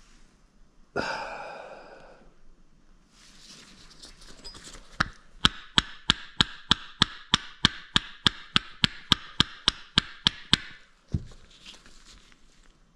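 Sharp metallic clank that rings for about a second. Then an evenly paced run of about twenty sharp ticks, roughly three a second, over a ringing metal tone, ending in a single knock: the Bafang G60 hub motor's rotor being turned on its stator and scraping once each turn, which the owner puts down to a warped rotor shell or a stator fault.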